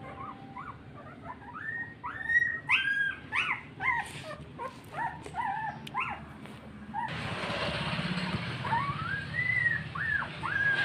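Two young puppies whimpering and crying in a run of short, high-pitched calls, one after another, as they call for their mother.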